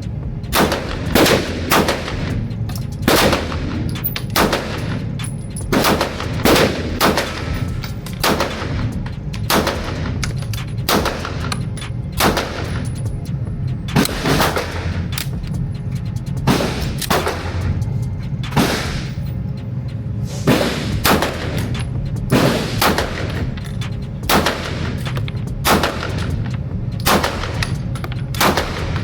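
Handgun firing a long string of single shots, roughly one a second with some quick doubles, each followed by a short ring. It fires without jamming now that some rounds have been taken out of an overfilled 32-round extended magazine. A steady low hum runs underneath.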